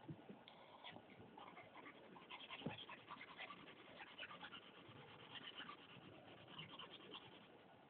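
Faint graphite pencil scratching on paper in quick back-and-forth shading strokes, with one light knock about two and a half seconds in; the scratching thins out near the end.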